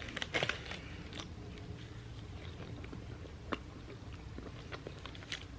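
A person biting and chewing crunchy food close to the microphone: a burst of crunching about half a second in, then scattered chewing clicks.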